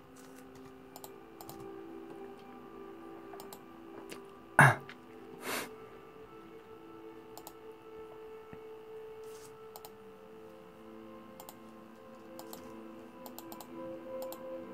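Laptop keyboard typing and clicks, over faint background music with long held notes. A single sharp knock about four and a half seconds in, and a softer one a second later.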